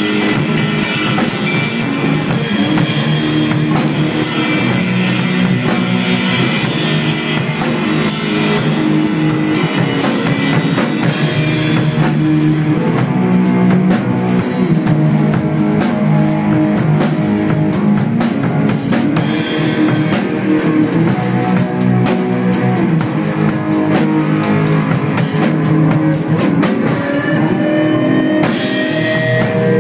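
Stoner rock band playing a driving passage on electric guitar, bass and drum kit. A note slides upward near the end.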